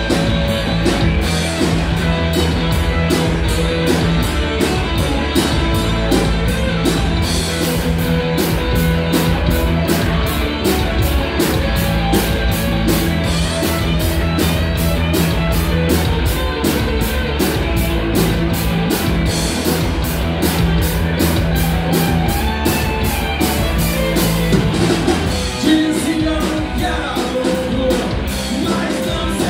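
Live rock band playing loud and steadily: drum kit driving a fast, regular cymbal beat under distorted electric guitars and bass.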